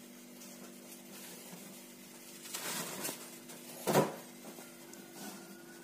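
Quiet room tone with a low steady hum, a soft rustle about two and a half seconds in, and one sharp knock about four seconds in.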